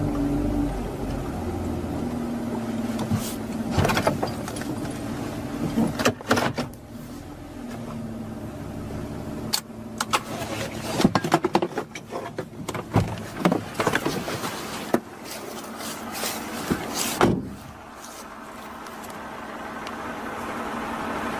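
A steady low hum, with many short clicks and knocks scattered through the middle of the stretch.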